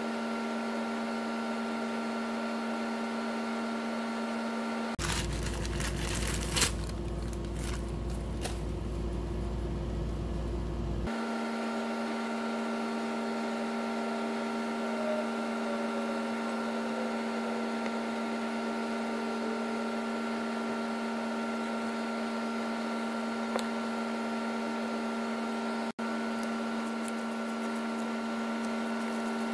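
Steady machine hum at an even level, with a few light clicks of metal parts being handled as a water pump is fitted to its housing. About five seconds in, the hum gives way for some six seconds to a deeper rumble with clicks, then returns.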